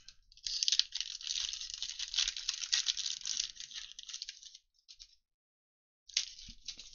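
Foil wrapper of a 2021 Panini Illusions football card pack being torn open and crinkled by hand. It is a dense crackling that starts about half a second in and lasts about four seconds, followed by a short crinkle near the end.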